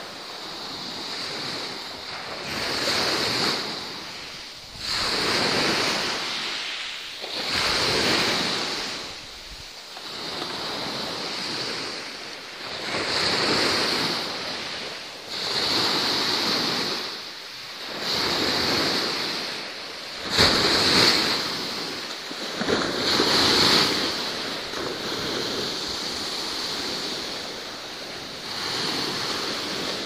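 Sea waves surging and washing in, one swell of surf every two to three seconds, each rising and then fading.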